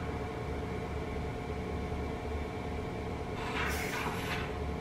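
Steady room hum with a few faint fixed whining tones, like a running household appliance. A short rustle of handling comes twice, about three and a half seconds in.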